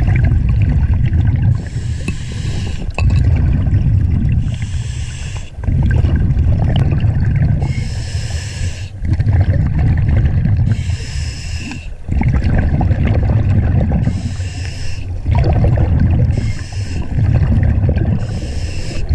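Scuba diver breathing through a regulator underwater: regular breaths about every three seconds, each with a hiss from the regulator and a rumble of bubbles.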